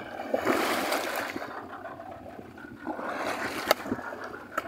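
Hooked marlin thrashing at the surface beside the boat's hull, throwing water in two splashing bursts, one just after the start and one about three seconds in, with a couple of sharp knocks.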